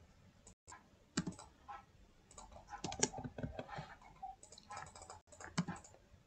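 Computer keyboard keystrokes and mouse clicks: light, irregular taps in small clusters, thickest around the middle.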